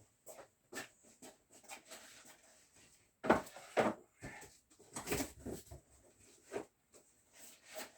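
Hands handling and rummaging through a packaged gasket set: irregular light knocks, scrapes and rustles, a few louder bursts around the middle.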